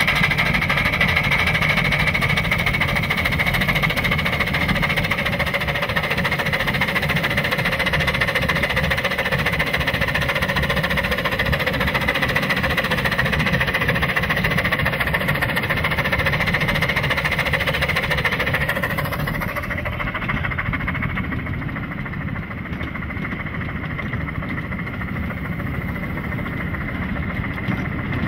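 Oil-fired 9-inch-gauge live steam locomotive running under way with its train: a dense, steady rush of mechanical running noise with a high tone through it. About two-thirds of the way in the high part drops away and the sound turns duller and a little quieter.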